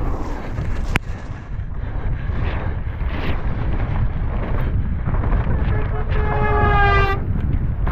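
Wind buffeting the helmet camera's microphone and the rumble of a downhill mountain bike running fast over a rough dirt trail, with a sharp knock about a second in. Near the end a held, steady-pitched call lasting about a second from a person beside the course.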